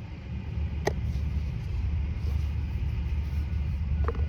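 Wind buffeting the microphone: a steady low rumble, with a sharp click about a second in and a lighter click near the end.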